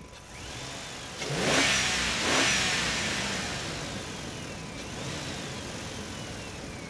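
Vehicle engine revving sound effect: the engine pitch surges up, loudest a second or two in, then sweeps up and falls away again near the end.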